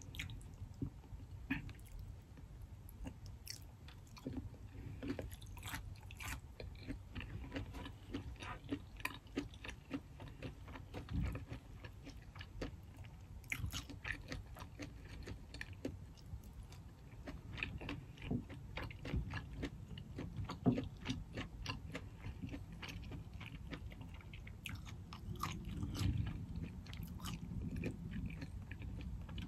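Close-miked chewing and wet mouth sounds of someone eating soft seafood boil, with scattered small clicks and smacks at an uneven pace.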